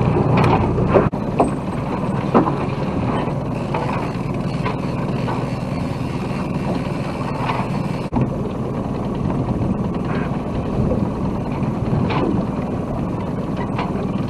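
Sailboat underway in strong wind: a steady rush of wind and water with a low steady hum, broken by scattered short knocks and splashes.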